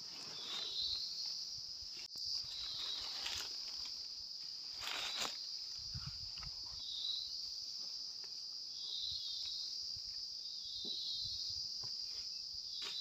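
Insects droning steadily on one high note, with a short warbling chirp every few seconds. A few rustles and snaps through brush and leaf litter, the loudest about five seconds in.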